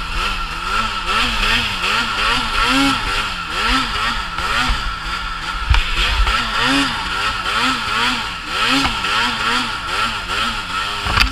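2018 Arctic Cat M8000 snowmobile's 800 two-stroke twin revving up and down over and over, about two throttle blips a second, as the sled is worked through deep powder. A thump a little past halfway.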